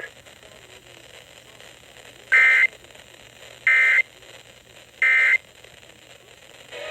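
Emergency Alert System end-of-message data tones: three identical short, buzzy digital bursts about 1.3 seconds apart. They mark the close of the weather alert broadcast.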